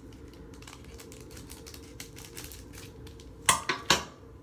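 Basketball trading cards being handled and flipped through: faint small ticks and shuffles, then two loud rustles about three and a half seconds in.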